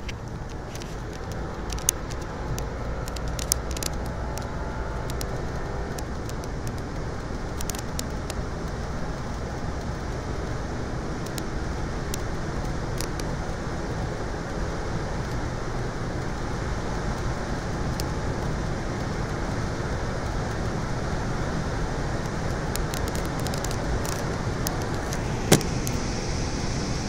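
Steady in-cabin noise of a 2003 Lexus sedan at about 120 mph, near its governed top speed: engine, tyre and wind noise at around 5,000 rpm, slowly building, with a faint rising engine note in the first few seconds. A few sharp clicks stand out, the loudest near the end.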